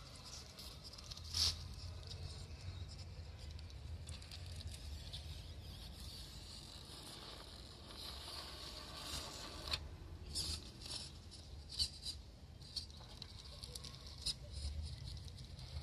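Radio-controlled scale rock crawler creeping over rock: quiet scrabbling and scraping of its tyres, with scattered sharp clicks, a few of them in quick succession near the end.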